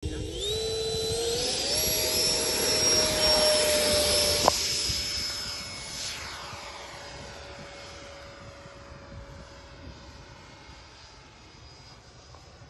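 Electric ducted-fan motor of a radio-controlled model jet spooling up in steps to a high, steady whine on its takeoff run, with a sharp click about four and a half seconds in. The whine then fades as the jet climbs away.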